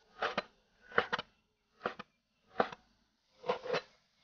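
A kitchen knife chopping raw lamb on a wooden cutting board: five knocks a little under a second apart, some of them a quick double knock.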